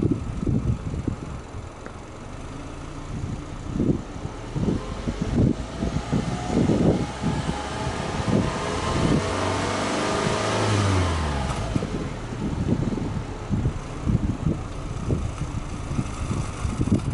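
Subaru Legacy B4 2.5i's 2.5-litre flat-four (boxer) engine heard at the tailpipe: it idles, then is revved once with no load. The pitch climbs steadily for several seconds past the middle and falls back to idle. Wind buffets the microphone throughout.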